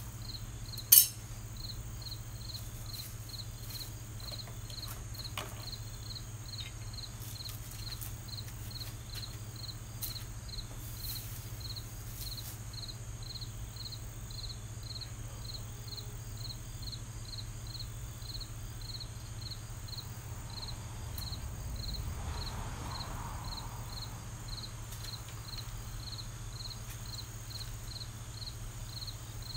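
An insect chirping steadily at one high pitch, about two chirps a second, over a low steady hum. One sharp click about a second in is the loudest sound.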